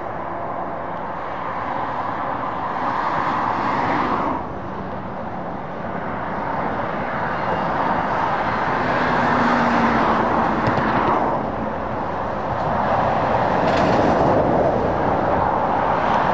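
Fast road traffic: heavy lorries and cars passing, their tyre and engine noise rising and falling as each vehicle goes by. There is a sudden drop in level about four seconds in, and loud passes around ten seconds and near the end.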